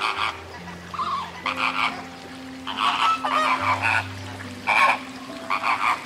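A flock of flamingos honking: about a dozen short, goose-like calls in overlapping clusters, several close together at times.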